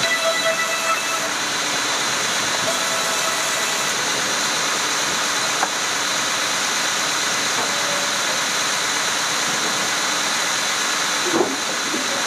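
Woodworking machinery running steadily in a rubberwood workshop: a loud, even hiss with faint high whines. A short knock about five and a half seconds in, and a brief louder knock near the end.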